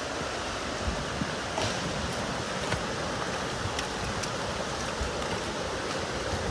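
Steady rushing of flowing water, with a faint low rumble of wind on the microphone and a few light clicks.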